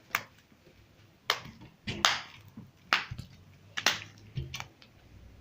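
Homemade glue slime being kneaded and squeezed in the hands, giving sharp wet snaps and pops, about five loud ones with softer clicks between.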